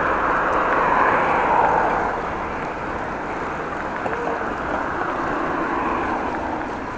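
Road traffic noise heard from a bicycle riding along a cycle path beside a busy road, a steady rush that swells about a second in and eases off after.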